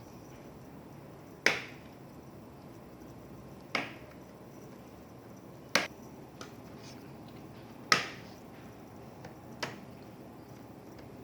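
Five sharp clicks about two seconds apart, from hands and tools working on a laptop's hardware.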